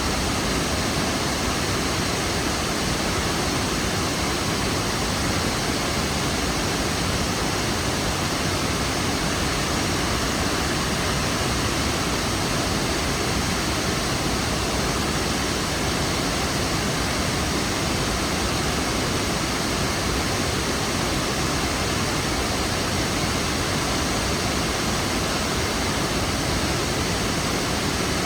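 Kravica waterfall: falling water making a steady, even rush of noise.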